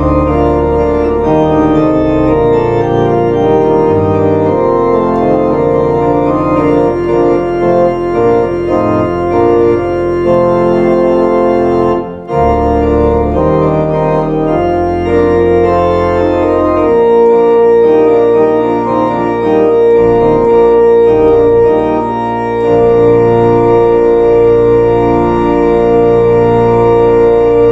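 Two-manual organ playing sustained chords over low pedal bass notes, with a brief break about twelve seconds in. It ends on a final chord that dies away at the very end.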